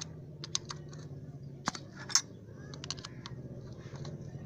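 Irregular sharp metal clicks and taps of tools and engine parts being handled and fitted on a small motorcycle engine, over a steady low hum.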